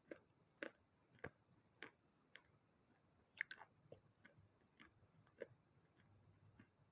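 A person chewing and biting pieces of a water-soaked baked-clay pot and saucer. There are about a dozen short, sharp crunches at irregular intervals, the loudest about three and a half seconds in.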